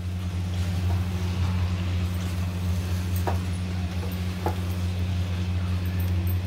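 A wooden spatula stirring grated paneer through thick masala in a non-stick kadhai, knocking lightly against the pan a couple of times. Under it a steady low hum, louder than the stirring.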